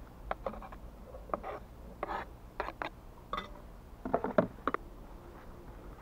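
Knife scraping chopped cucumber off a plastic cutting board into a metal pot, followed by scattered knocks and clatters of cookware being handled.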